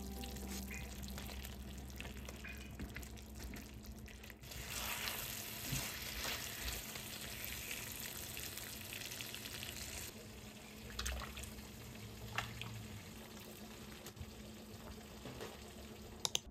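Braised daikon, carrot and ground pork simmering in a frying pan with a steady sizzling bubble as cornstarch slurry is stirred in to thicken the sauce; the sizzle grows louder for a few seconds from about a third of the way in. A few light clicks follow, two close together near the end.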